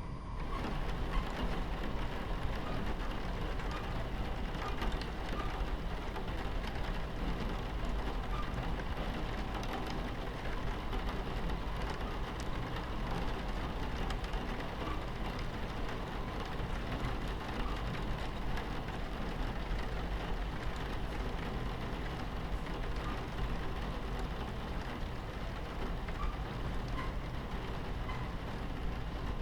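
Rain on a train window, a steady hiss of fine drops, over the low, even rumble of the train running on the tracks.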